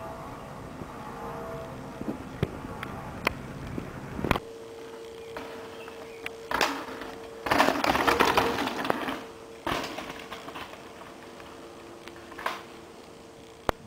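Downhill mountain bike riding a rough dirt trail: tyres crunching and skidding over dirt and roots, with the bike rattling and sharp knocks over bumps. The loudest stretch is a rush of tyre and chassis noise near the middle, about two seconds long. A low, even rumble in the first few seconds cuts off abruptly.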